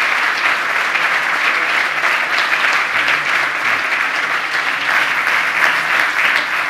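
Audience applauding steadily at the close of a lecture, many hands clapping at once.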